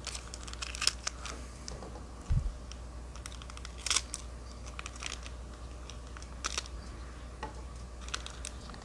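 Foil Pokémon card booster pack crinkling and crackling as it is handled and pulled open, with a few sharp crackles and a dull bump about two and a half seconds in.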